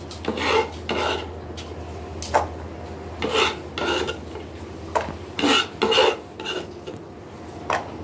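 A knife cutting and scraping an onion on a plastic cutting board, in irregular sharp knocks and rasping strokes, with chopped pieces pushed into a metal bowl.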